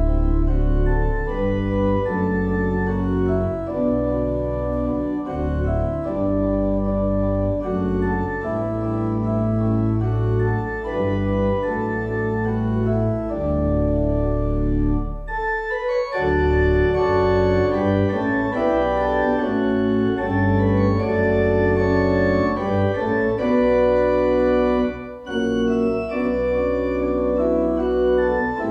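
Organ music playing slow, sustained chords, with two brief breaks between phrases.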